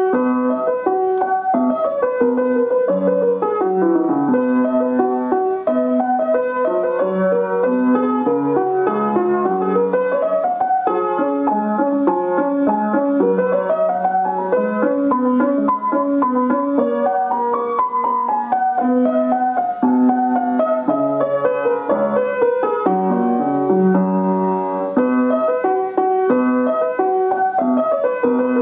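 Piano played with both hands: a steady stream of notes in long runs that climb and fall again, over held lower notes.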